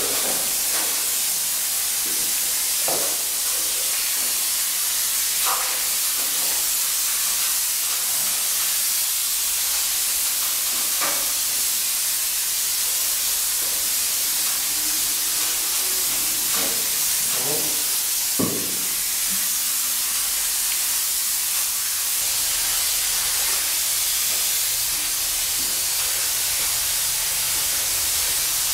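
Compressed-air spray gun hissing steadily as it atomises disinfectant, with a few faint knocks now and then.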